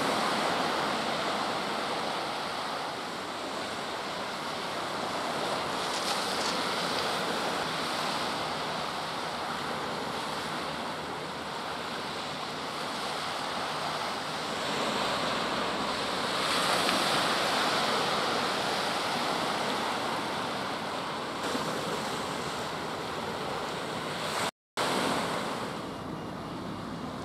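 Sea waves washing on a shingle beach with wind buffeting the microphone: a steady rushing noise that swells and eases. The sound drops out briefly near the end.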